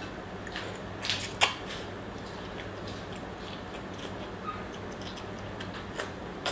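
Eating sounds: scattered clicks of utensils against a bowl, with one sharp clack about a second and a half in, over a steady low hum.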